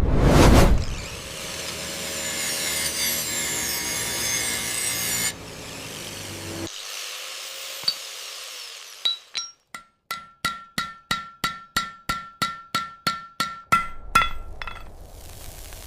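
Miniature-factory sound effects: a steady scraping noise for several seconds. It is followed by a quick run of light metallic hammer taps, about four a second, each with a short bright ring, that stops a little before the end.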